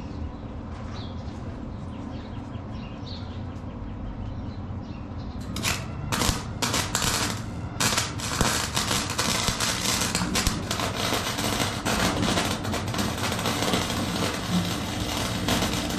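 Forney FC125 flux-core welder arcing: a few short sputtering starts about five and a half seconds in, then a continuous crackling arc as a bead is run. A steady low hum sits underneath throughout.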